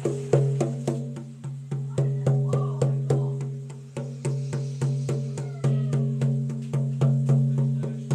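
Large rawhide frame drum struck in a steady, even beat of about three strokes a second, its deep tone ringing on between strokes: a shamanic journey drumbeat.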